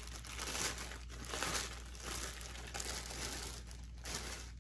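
Plastic packaging crinkling and rustling in irregular bursts as it is handled and opened by hand.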